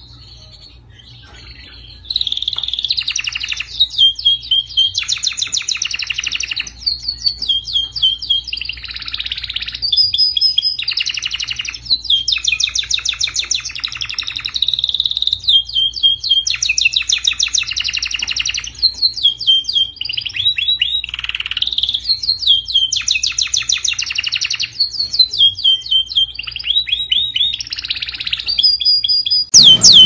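Domestic canary singing a long, continuous song of rapid trilled rolls and repeated short whistled notes, starting about two seconds in.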